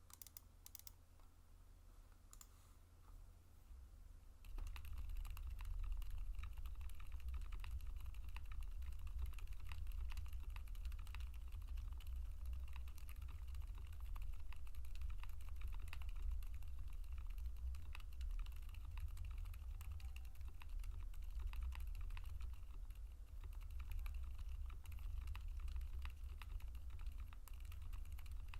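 Typing on a gasket-mounted Qwertykeys Neo65 mechanical keyboard with a polycarbonate plate, full foams and TTC Frozen Silent White v2 silent switches. A few scattered keystrokes come first, then steady fast typing from about four seconds in.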